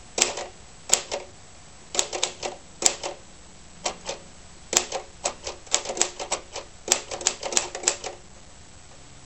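Royal Magic Margin manual typewriter being typed on: sharp, uneven key strikes in short runs, the type bars hitting the platen, stopping about a second before the end.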